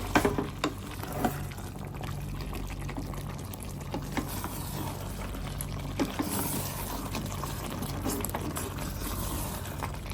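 A metal spoon stirring chopped capsicum into a pot of simmering potato gravy, knocking against the pot several times, with a steady bubbling hum underneath.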